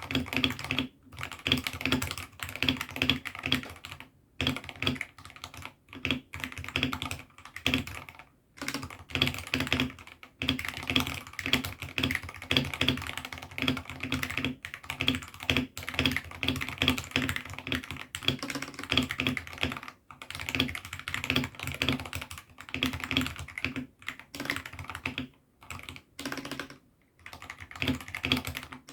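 Typing on a 68-key hot-swappable mechanical keyboard fitted with AKKO Sakura switches: a fast, continuous run of keystrokes broken by a few short pauses.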